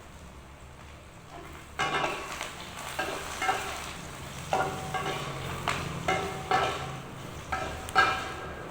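A metal utensil stirring and scraping food in a metal pan, the pan ringing briefly at each stroke. It starts about two seconds in and repeats roughly once or twice a second.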